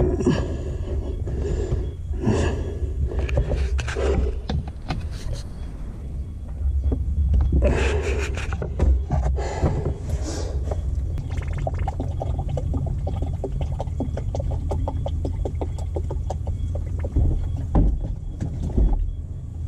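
Subaru Sambar kei truck engine running as a steady low rumble, with rustling and knocks of hands working around the cab footwell in the first half and a fine, fast ticking later on.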